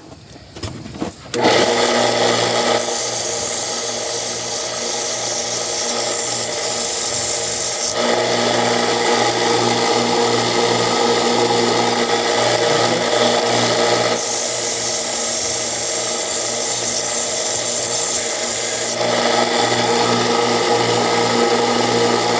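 Central Machinery 1x30 belt sander starting up about 1.5 s in and running steadily with a motor hum. A hissing grind rises and falls in stretches of several seconds as a metal workpiece is worked against the belt.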